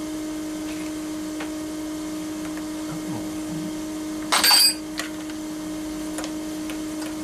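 Steady electric motor hum from the CNC mill setup, with a short, loud burst of noise a little past halfway.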